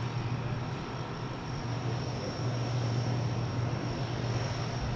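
C-130 Hercules turbine noise: a steady high whine over a low drone.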